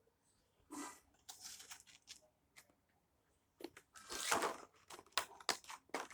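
Packaging being torn and crinkled open by hand: scattered rustles in the first seconds, then a denser run of tearing and crinkling with several sharp clicks in the second half.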